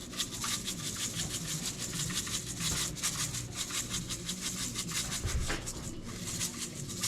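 Spice shaker being shaken over fish fillets: a fast, steady rattle of dry seasoning granules.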